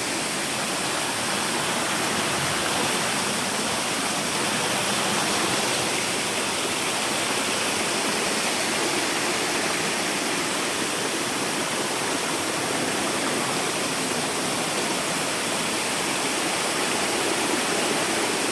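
Waterfall and fast river current rushing steadily, a constant dense hiss of falling and churning water.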